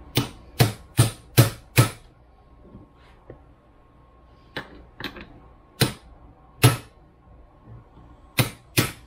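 Steel hammer striking the yoke of a double cardan driveshaft joint held in a bench vise, metal on metal, to drive out the U-joint bearing caps. Five quick blows, a pause, a few spaced blows, then two more near the end.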